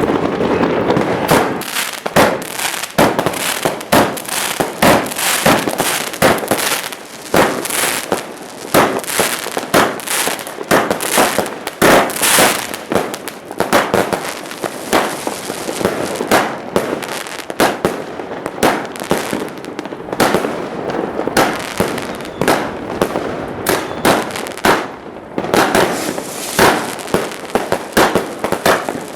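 Consumer firework cakes firing shot after shot: a rapid, continuous series of sharp bangs, roughly two a second.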